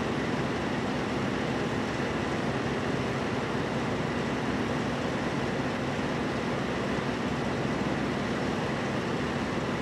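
Steady, even rumble and hiss of room noise, unchanging throughout, with no distinct events.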